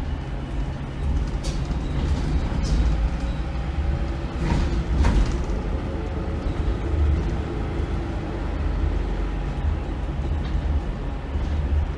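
Volvo B8RLE bus's rear-mounted 7.7-litre six-cylinder diesel running under way, heard inside the saloon as a steady low rumble with engine drone and road noise. A short burst of hiss comes through about four and a half seconds in.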